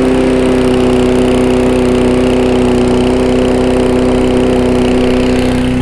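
Gas lawnmower engine running steadily at a constant speed.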